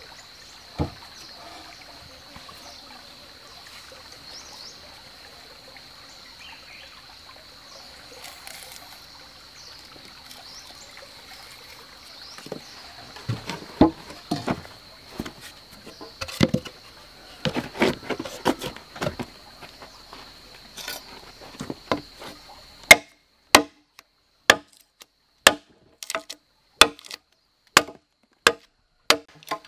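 A steady high insect drone over faint forest background, with scattered wooden knocks from about the middle. Then, about three-quarters in, the insect sound stops and an axe begins chopping into a log in sharp, regular strokes, about three every two seconds; the strokes are the loudest sound.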